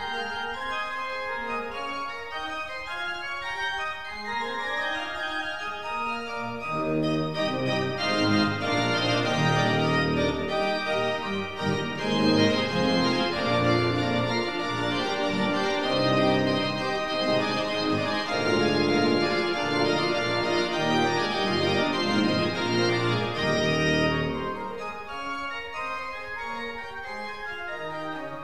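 Church pipe organ playing a piece with many quick notes in the upper voices. A deep pedal bass comes in about a quarter of the way through and drops out again near the end, leaving the manuals alone.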